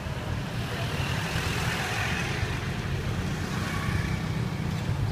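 Street traffic with motor scooter engines running; a passing vehicle swells louder about two seconds in.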